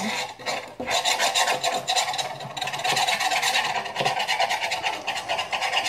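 Rapid back-and-forth scraping strokes, starting about a second in: stuck flour-and-water dough being scraped and cleaned off the hot cooking surface.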